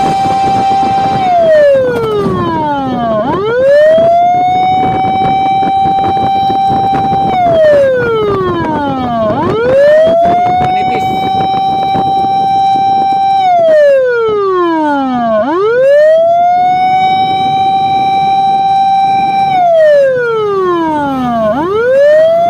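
Fire truck siren wailing loud and close, holding one high pitch for about six seconds, then dropping steeply and sweeping quickly back up; this slow cycle comes round four times.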